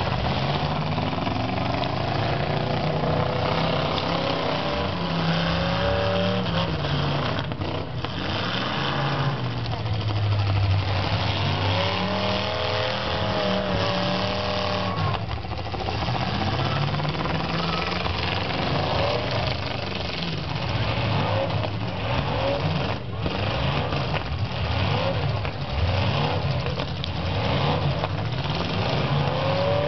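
Several demolition-derby cars' engines revving up and down as the cars push and ram one another in deep mud, with a few sharp knocks of impact.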